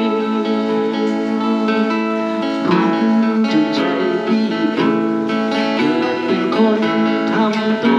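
Guitar being played, a run of strummed chords and picked notes.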